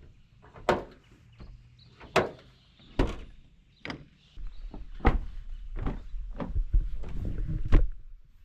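A series of separate sharp knocks and thuds, roughly one a second, with a low steady rumble that comes in about halfway through.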